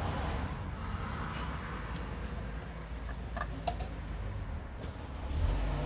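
A few faint, light clicks of metal engine parts being handled as the variable valve timing solenoid is fitted onto the cylinder head, over a steady low hum.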